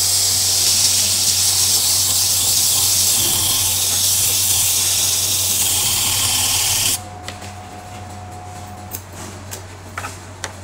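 Small single-phase electric motor, fitted with a new bearing, test-running with a steady loud hiss. It stops abruptly about seven seconds in, and a faint steady tone lingers for about two seconds.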